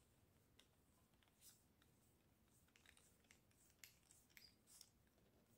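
Faint, scattered small clicks and scrapes of a screwdriver turning small screws into a plastic RC car wing mount, mostly in the second half.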